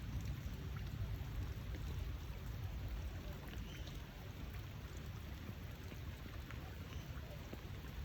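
Steady rain falling, with a low rumble and scattered light drips and taps.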